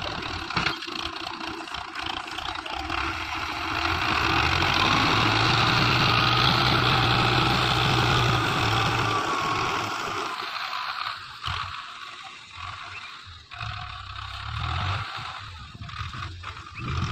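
Belarus 510 tractor's diesel engine working hard under load as its front-loader bucket pushes through sand. The engine is loudest in the middle, then eases off and turns uneven after about ten seconds.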